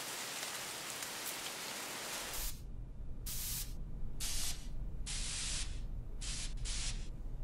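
Aerosol spray-paint can spraying onto a wall in a series of short hissing bursts, each starting and stopping sharply, beginning about two and a half seconds in. Before that, a steady even hiss of background noise.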